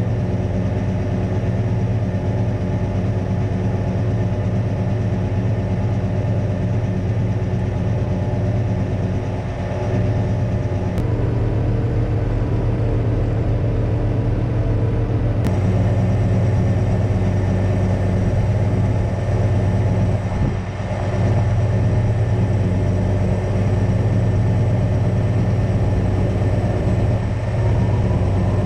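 Engine of a knuckleboom crane truck running steadily, powering the crane's hydraulics during a lift. For a few seconds in the middle the sound changes, with a low pulsing tone.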